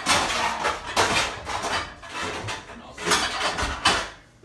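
Pots and pans rattling and clattering against one another as they are rummaged through and pulled out of a pantry, in a string of sharp clanks.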